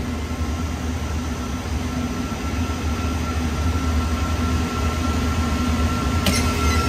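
Trane Intellipak rooftop unit running with a steady low hum, and a thin whine that comes in a couple of seconds in. Near the end comes a sharp contactor clack as the suspect scroll compressor is energized. The technician takes that compressor for one with a locked rotor.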